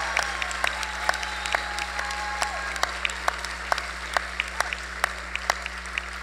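Audience applauding after a dance performance, with individual sharp claps standing out over a steady patter, slowly dying down. A drawn-out whoop or two rises above it.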